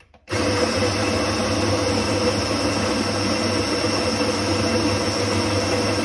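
Smeg electric burr coffee grinder grinding espresso beans fine into a portafilter on its double-shot setting: the motor starts with a steady whir just after the start and runs on evenly.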